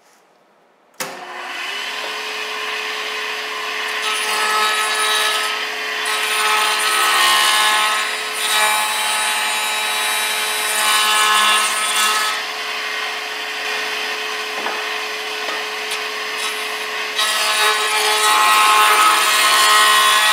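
Delta 6-inch jointer running with a steady whine; the sound comes in abruptly about a second in. The cutter head cuts louder and hissier each time the walnut board's edge is pushed over it, in several passes as the edge is straightened.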